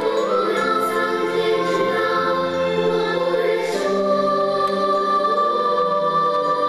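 Children's choir singing a slow song in long held notes.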